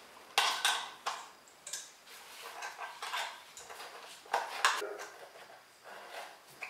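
Metal tools and engine parts clanking and rattling against each other in a series of sharp, irregular clinks, the loudest about half a second in and again after four seconds.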